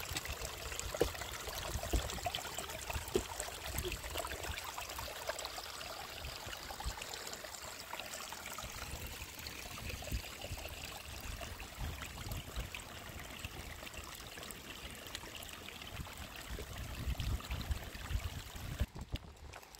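Small mountain stream trickling over stones, a steady rushing hiss, with scattered footsteps crunching on rocky ground.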